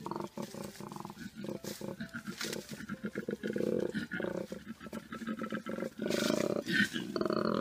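Koala bellowing: a long series of deep, rhythmic snoring grunts, louder near the end.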